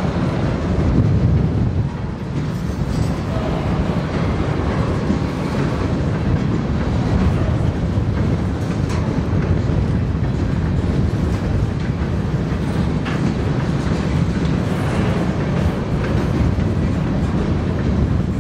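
Freight train of empty covered hopper cars rolling past at low speed: a steady rumble of steel wheels on rail, with occasional clicks as wheels cross rail joints.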